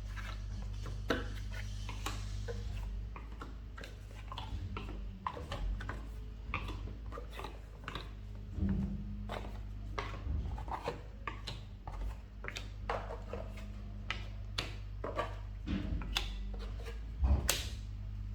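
Irregular light clicks, taps and rubbing of small toy pieces being handled and set down on a hard surface, over a steady low electrical hum.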